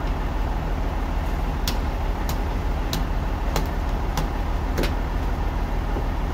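A hammer strikes the steel log clamp on a band sawmill carriage six times, about two-thirds of a second apart, fixing a large trembesi log in place before the cut. Under it is the steady low hum of the sawmill machinery running.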